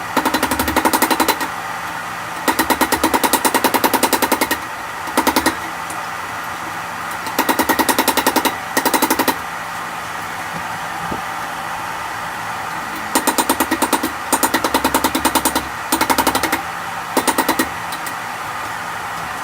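A power tool working metal, giving a rapid mechanical rattle in about nine short bursts of one to two seconds each, over a steady hum.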